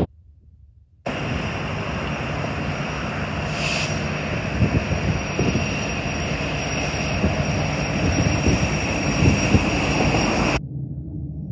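A large engine running steadily: a deep rumble with a high whine on top. It cuts in abruptly about a second in and drops away suddenly near the end.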